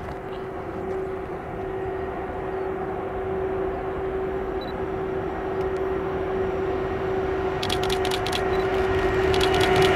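DB class 152 electric locomotive and its intermodal freight train approaching: a steady hum and rumble that grows gradually louder, with a quick run of clicks near the end.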